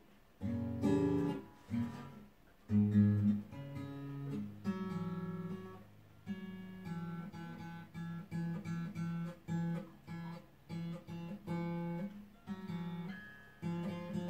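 Epiphone Pro-1 acoustic guitar played by hand: a few loud strummed chords in the first three seconds, then a steady run of single picked notes. The guitar is new and not yet tuned.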